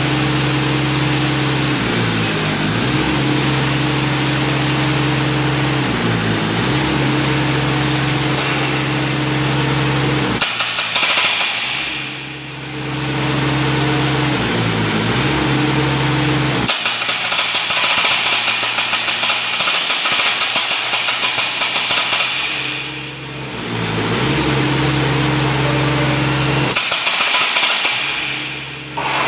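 Remote-controlled demolition machine running: a steady engine and hydraulic drone whose pitch dips briefly a few times. It is broken by three bursts of rapid hydraulic breaker hammering, the longest about five seconds.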